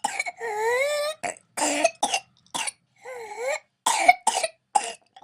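Infant with whooping cough (pertussis) in a paroxysmal coughing fit: short, sharp coughs broken twice by a long, high-pitched in-breath, the whoop or reprise. The whoops come once just after the start and again about three seconds in.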